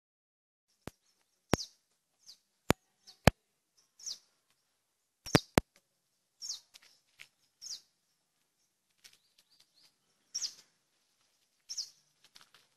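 A bird repeatedly giving a short high chirp that slides downward, every second or two. Several sharp clicks, the loudest sounds, come in the first six seconds.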